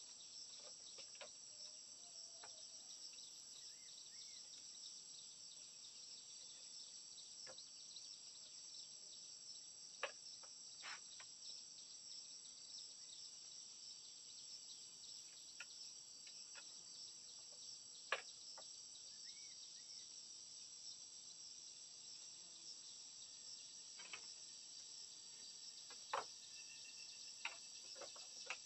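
Steady high-pitched insect chirring with a handful of sharp, widely spaced taps and knocks of split bamboo slats being handled and fitted.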